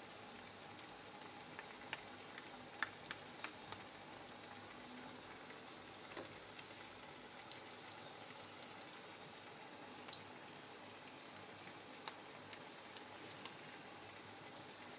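Sabudana-potato pakoras frying in hot ghee in a kadhai: a faint steady sizzle with scattered irregular crackles and pops.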